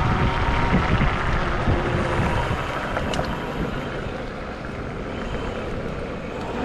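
Wind rushing over the microphone and tyre noise from a Wolf Warrior dual-motor electric scooter under way, with a faint thin whine from its motors. The loudness eases a little in the middle, then picks up again.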